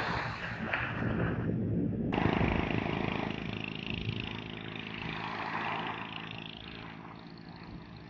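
Small waves washing onto a sandy beach, with wind on the microphone and a steady low hum underneath. The sound changes abruptly about two seconds in.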